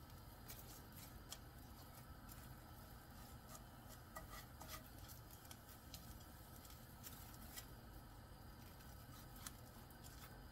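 Near silence, broken by a few faint, irregular crisp clicks and rustles: dry, oiled sheets of laver seaweed being lifted and turned in a frying pan by hand and with wooden chopsticks.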